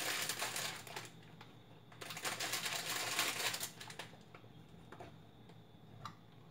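Crinkling plastic wrapper of a sleeve of Maria cookies being handled, in two bursts of dense crackling a second or so apart, followed by a single light click near the end.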